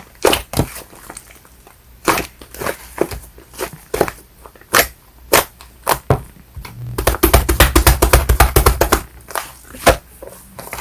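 Fluffy shaving-foam slime being squished and pressed by hand, giving sharp wet pops and crackles of bursting air pockets. About seven seconds in comes a quick run of crackles, roughly ten a second, lasting about two seconds.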